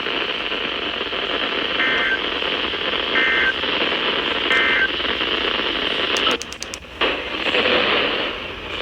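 Weather radio receiver hissing with static, with three short two-tone digital data bursts about a second and a half apart: the SAME end-of-message codes that close an Emergency Alert System weather warning. About six seconds in, the static drops out briefly with a few clicks and then returns.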